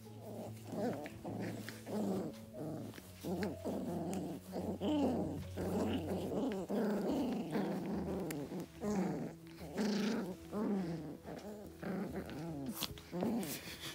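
Young puppies making a string of short whines and growls, one after another, about two a second.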